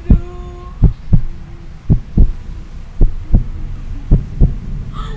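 Heartbeat sound effect: a loud double thump, lub-dub, repeating about once a second.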